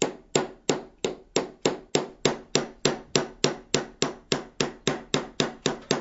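Small hammer tapping steadily on a centre punch, about three light blows a second, each with a short metallic ring, driving the pin out of a metal detector's cam-lock.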